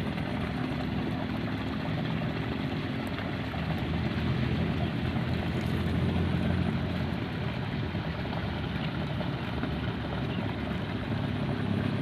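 A motor running steadily in the background: an even low drone with a hiss over it.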